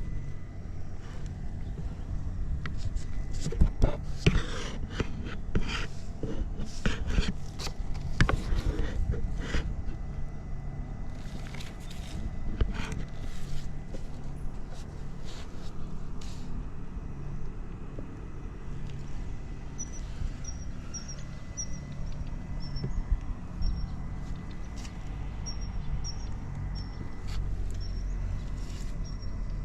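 Suzuki GS50's small single-cylinder engine idling steadily and quietly, with no abnormal noise. Sharp clicks and knocks come through the first half, and a run of short high chirps in the second half.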